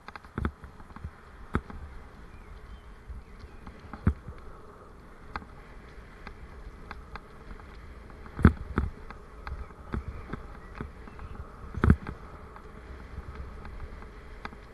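Bicycle rolling along a rough towpath, heard through a bike-mounted camera: a steady rolling rumble with a faint buzz, broken by several sharp knocks from bumps, the loudest about eight and a half and twelve seconds in.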